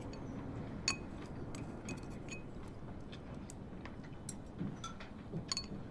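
Faint, scattered clinks of chopsticks and tableware against dishes during a meal.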